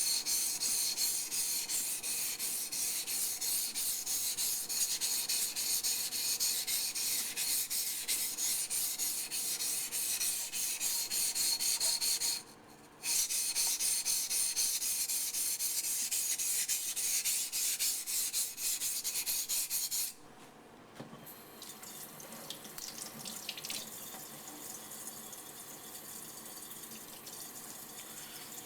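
Yanagi knife blade rubbed back and forth on a Japanese waterstone with light pressure, gliding over the stone's mud slurry to smooth the scratch pattern. The stroking pauses briefly near the middle and stops about two-thirds of the way through, leaving a quieter sound of water.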